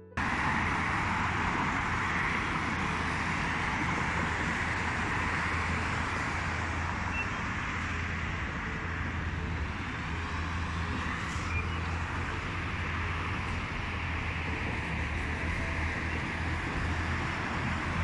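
Steady outdoor city noise, a constant hiss with a low rumble like road traffic.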